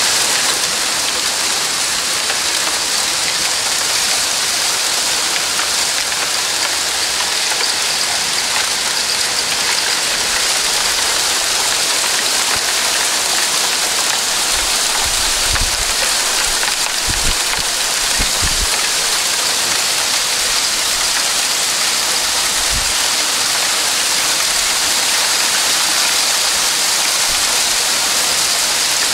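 Heavy downpour, rain and possibly hail drumming on a street and a tiled roof as a steady, dense hiss. A few dull low thumps break in around the middle.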